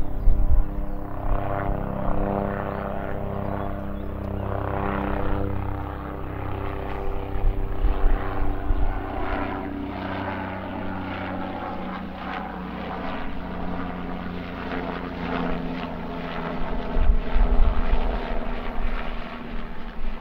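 Helicopter in flight: a steady engine drone with the rhythmic chop of the rotor blades. Its pitch slides gently down partway through, as if it is passing by.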